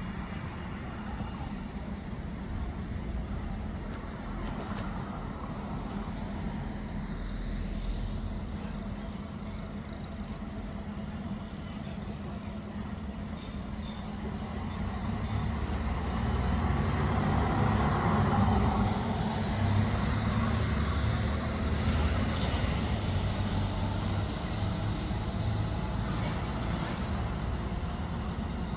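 Road traffic going by, with a steady low rumble; about halfway through, a vehicle passes close, getting louder for several seconds and then easing off.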